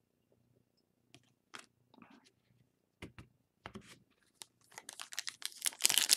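A few light taps and clicks of trading cards being handled, then a foil card-pack wrapper crinkling and tearing as it is opened, growing loud near the end.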